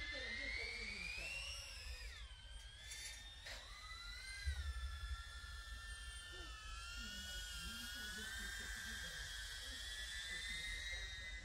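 DJI Avata cinewhoop drone's motors and ducted propellers whining, the pitch climbing over the first two seconds, dropping, rising again, then holding a steadier high whine as the throttle changes. A brief low rumble about four and a half seconds in.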